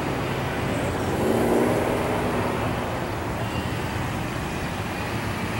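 Road traffic noise, with one vehicle's engine passing close and swelling louder between about one and two and a half seconds in.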